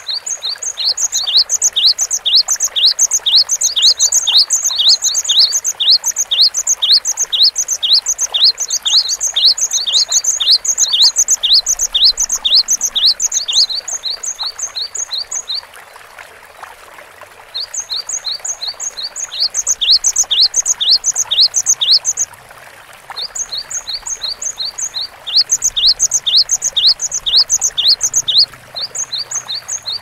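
Great tit singing its rapid two-note song, a high note and a lower down-slurred note repeated about three times a second, in long runs broken by a short pause about halfway through and several brief gaps near the end.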